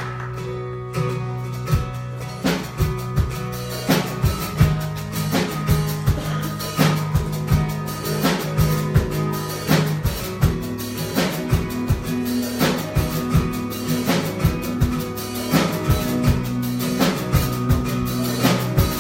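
Instrumental worship-band music with no singing: a drum kit keeps a steady beat over held bass notes and guitar.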